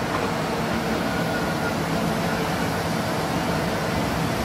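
GD4240/50 metal band saw running and cutting through an aluminium–steel bimetal block: a steady mechanical running noise with a faint low hum.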